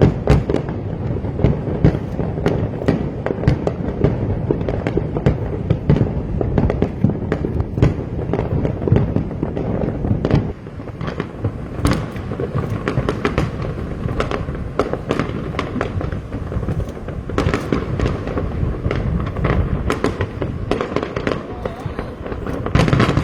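Fireworks display: a dense, continuous barrage of sharp bangs and crackles over a low rumble. It eases briefly about halfway through, with a cluster of louder bangs near the end.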